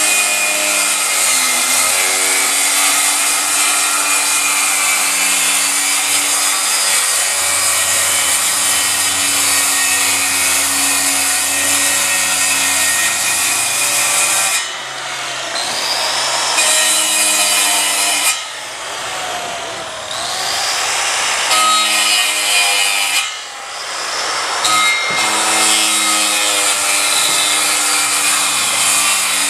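Handheld power saw cutting a slot through OSB roof sheathing, its motor whining and shifting in pitch under load. Several times, about halfway and again a few seconds later, the saw eases off and the motor winds down and back up before cutting on.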